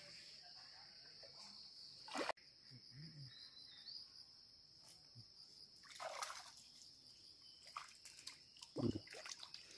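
Stream water splashing and sloshing a few times as a man wades and works a cast net through it, the sharpest splash about two seconds in. A steady high insect drone runs underneath.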